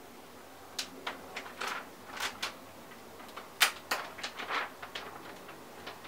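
Clear protective plastic film being peeled and pulled off a new flat-panel display's screen: an irregular run of sharp crinkles and clicks, the loudest about three and a half seconds in.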